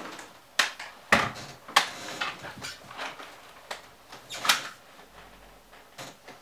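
Airsoft rifle being handled while its magazine is changed: several sharp clicks and knocks, scattered unevenly, the loudest near the start and about two-thirds of the way through.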